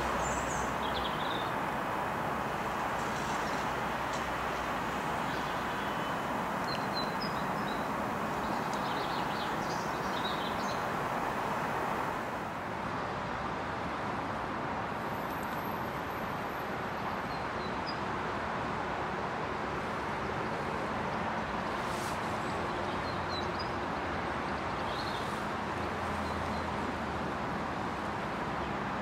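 Steady outdoor background hiss with scattered short bird chirps; the background drops a little about twelve seconds in.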